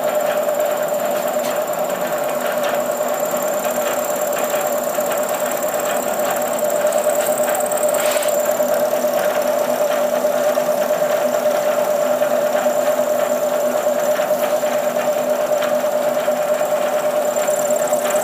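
Milling machine spindle running a small end mill that cuts a keyway slot in a shaft: a steady machine hum with one strong, unchanging tone.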